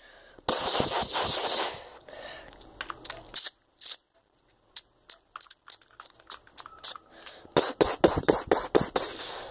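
A brief rustling hiss, then a run of short sharp plastic clicks and clatters as a LEGO-brick toy shotgun is handled and worked. The clicks come thickest near the end.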